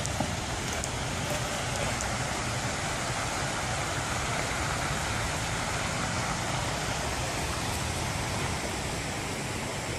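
Muddy flash-flood water rushing steadily, a continuous even noise.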